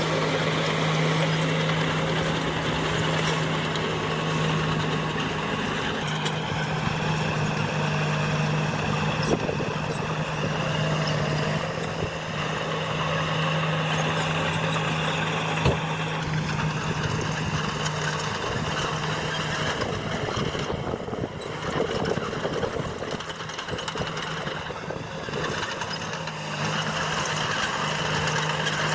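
Heavy diesel earthmoving machinery running steadily: a constant low engine drone with a high whine that drifts slowly up and down over it. There is one sharp knock about halfway through.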